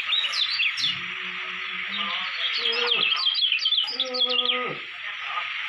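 Caged kecial kuning, a yellow white-eye, singing quick runs of high, falling chirps, densest about halfway through, over a steady insect hiss. A few deeper, drawn-out calls from another animal sound in the middle.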